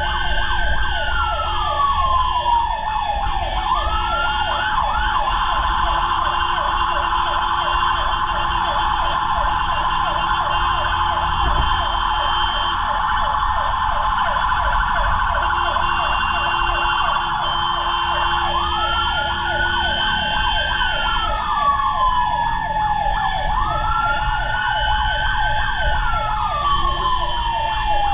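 Fire truck sirens on a response run. One siren wails, rising, holding and falling slowly, and stays on a steady high pitch through the middle. A second siren yelps rapidly the whole time, over a low engine rumble.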